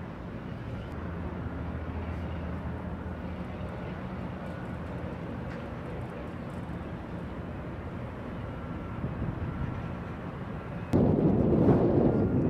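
Outdoor background with a faint steady low hum, then about eleven seconds in, loud wind buffeting on the microphone starts abruptly.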